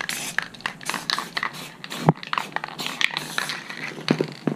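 Aerosol spray paint can hissing in a run of short squirts, each a fraction of a second long. There is one dull knock about two seconds in.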